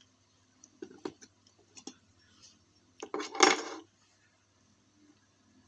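Small metal and plastic parts of a diecast model car clicking and clinking as it is pulled apart by hand, with a louder jangling clatter about three seconds in.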